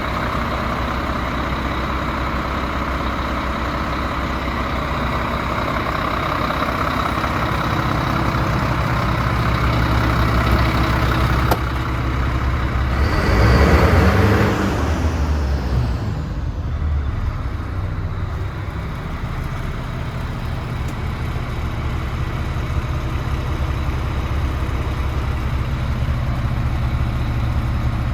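DAF CF75 truck's diesel engine idling steadily. About halfway through, a louder burst of noise swells and dies away over a couple of seconds.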